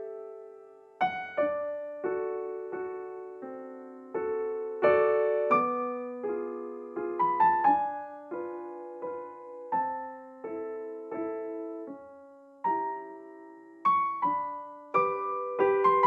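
Slow, gentle background piano music: single notes and soft chords, each struck and left to die away.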